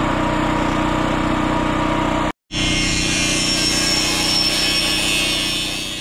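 A steady motor hum with low steady tones, cut off abruptly about two and a half seconds in. Then an angle grinder grinds a steel fence post, a hissing grind with a thin high whine that eases off near the end.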